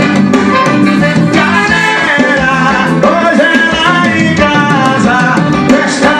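Latin dance music with a singing voice and percussion, played loud through a small home sound system with 8- and 12-inch loudspeakers.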